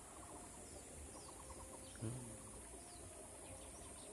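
Faint bird chirps: short descending notes repeated every half second or so, with a quick run of ticking notes about a second in, over a steady high hiss. A brief low voice sound comes about halfway through.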